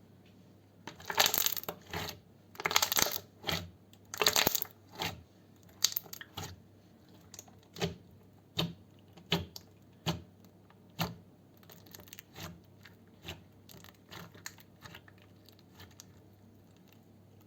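Slime being squeezed and pressed close to the microphone. It makes three longer crackling squelches in the first few seconds, then short sharp pops and clicks about once a second that grow fainter toward the end.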